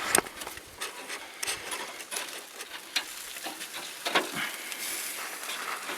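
Metal tongs clicking and scraping on the grill as racks of baby back ribs are turned over, with a low sizzle underneath.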